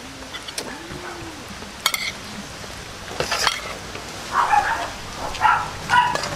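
Eating sounds of two people, with lip-smacking and chewing, and a few sharp clinks of a spoon and fork against a plate, the loudest about two seconds in.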